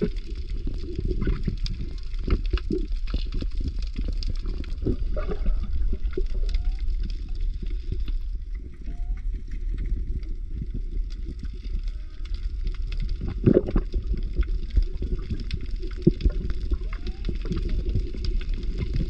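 Underwater ambience: a deep steady rumble with bubbling and scattered clicks, now and then a short rising chirp, and one louder knock about thirteen seconds in.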